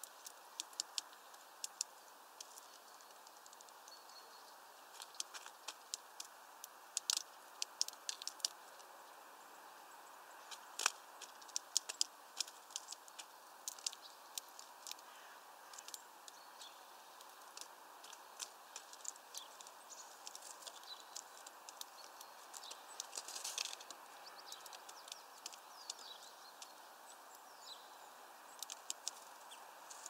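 A Eurasian nuthatch pecking at peanuts through a mesh feeder bag: irregular sharp taps and clicks, sometimes in quick runs, over a steady faint hiss.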